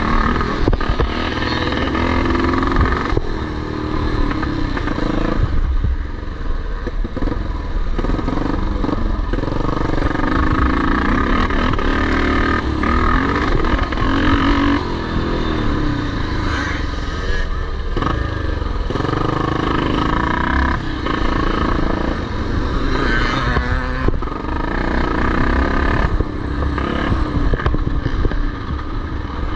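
Vintage motocross motorcycles racing, their engines revving up and falling back again and again as the bikes work around the track.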